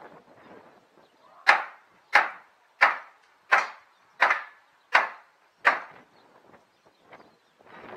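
Hammer blows on old wooden roof planks: seven sharp, evenly paced strikes about 0.7 s apart, followed by a few light taps near the end.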